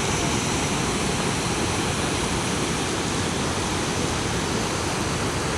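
Steady rushing of the Saugeen River running high and fast at a dam in spring flood.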